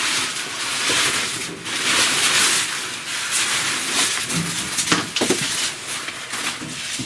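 Packing paper and cardboard rustling and crinkling as a wooden toy box is pulled free of its wrapping. A few sharp knocks come around the middle.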